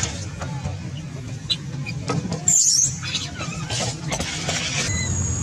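A baby monkey crying, with one loud, shrill squeal about two and a half seconds in. Clicks and knocks come from close by, over a low steady rumble.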